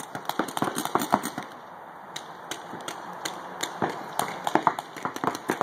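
Paintball markers firing a rapid, uneven string of sharp pops, several shots in quick clusters.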